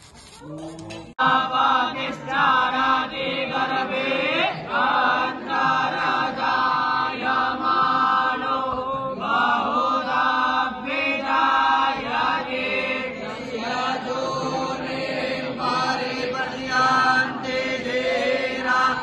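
Group of young Vedic students chanting Sanskrit mantras together in a sustained, sing-song recitation of blessing. It begins abruptly about a second in.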